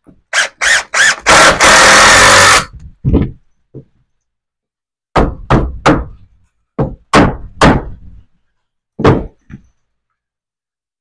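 Hard wooden knocks and thunks in clusters, lumber being handled and set in a truss-assembly jig, with one loud sustained burst of noise lasting about a second near the start.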